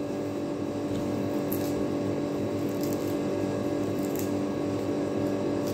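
A steady hum holding a few fixed tones, with a couple of faint dry crackles as dried tobacco leaves are handled.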